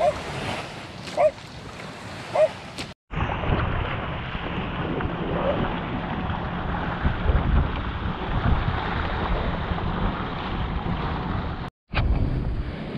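Wind rumbling on the microphone over moving water. The sound cuts out abruptly twice, about three seconds in and again near the end.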